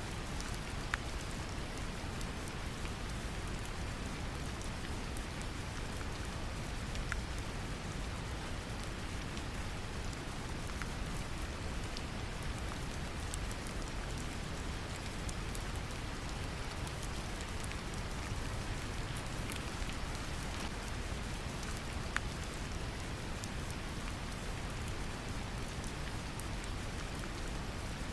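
Steady brown noise, a deep even rumble, mixed with gentle rain, with scattered faint drop ticks on top.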